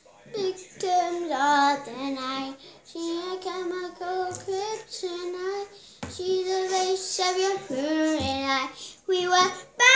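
A young girl singing a tune in short phrases with held notes and brief pauses between them.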